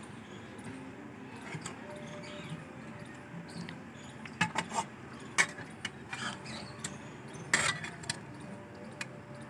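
Metal spatula clinking and scraping against a metal pan of boiled bottle-gourd slices, with a few sharp clinks, most of them in the second half, over a low steady background.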